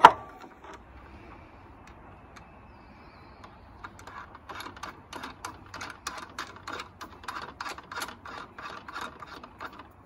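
A sharp click at the start. Then, from about four seconds in, quick light metallic clicks, several a second, as a freshly tapped metal joystick adapter is turned by hand onto the threaded joystick shaft to test the fit.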